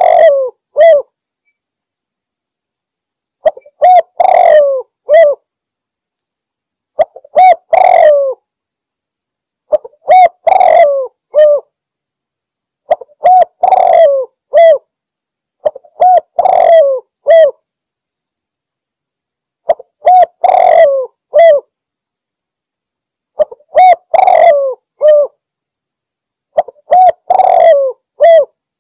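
Spotted dove (tekukur) cooing: a short phrase of several coos repeated about every three seconds, nine times. This is a male's challenge call to rivals, the kind used as a lure recording.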